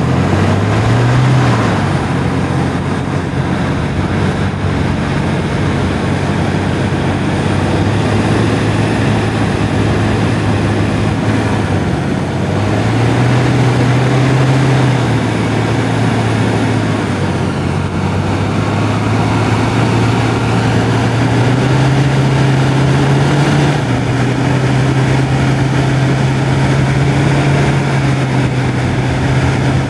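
Off-road 4x4's engine running under load while driving over desert sand. Its pitch climbs and falls back a few times as it revs, over a steady rushing noise.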